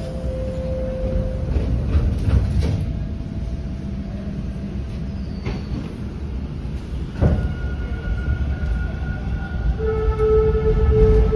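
Bombardier T1 subway train pulling out of the station and gathering speed, heard from inside the car: a steady low rumble of wheels on rail with faint motor tones. A sharp knock comes about seven seconds in, and a stronger, steady motor whine sets in near the end as the rumble grows louder.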